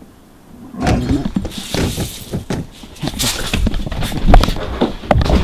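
Loud, rapid, irregular banging and thudding that breaks out suddenly about a second in, with rustling and clatter mixed in.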